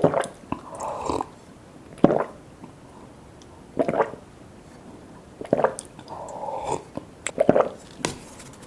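Close-miked eating sounds: bites and chewing of cheese lasagna and butter garlic toast, coming in short bursts about every one and a half to two seconds, with a few brief murmurs in between.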